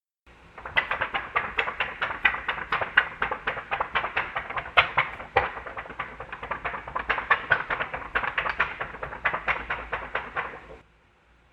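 A rapid, irregular run of sharp taps, several a second, lasting about ten seconds and stopping abruptly near the end.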